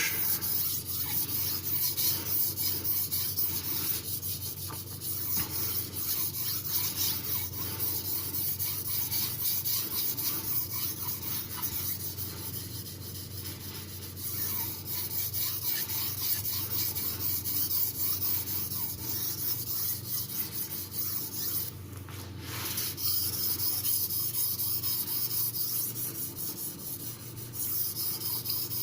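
Steel knife blade stroked back and forth on a Thuringian slate water stone with a thin slurry, polishing the edge: a continuous gritty rubbing, with a brief break about two-thirds of the way through.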